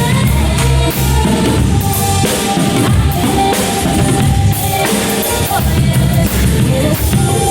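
Drum kit played along with backing music, loud, with kick drum and snare hits over the track.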